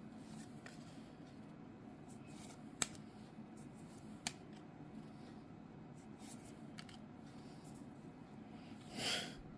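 Pokémon trading cards from a freshly opened booster pack being slid and flipped through by hand: faint card-on-card handling with two sharp clicks about three and four seconds in, and a short swish near the end.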